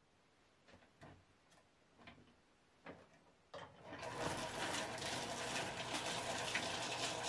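A few light clicks and knocks from handling a hobby rock tumbler's barrel. About three and a half seconds in, the tumbler is switched on and runs steadily, its barrel turning on the rollers with rocks and polish inside.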